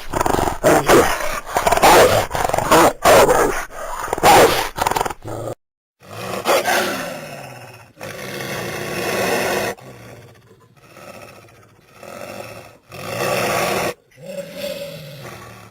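Eastern wolf snarling and growling in rapid, loud bursts for about five seconds. After a brief break come quieter, drawn-out growling calls whose pitch falls, with a short falling call near the end.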